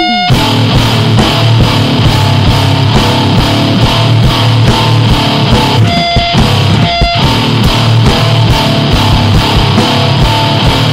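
Two-piece powerviolence band playing loud, fast heavy music: electric guitar over rapid, closely spaced drum hits. There are two short breaks about six and seven seconds in.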